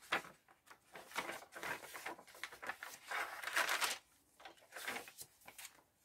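Pages of a handmade paper journal being turned by hand, with paper rustling and crinkling in irregular bursts, including a stiff tracing paper page. The loudest rustle comes about three to four seconds in.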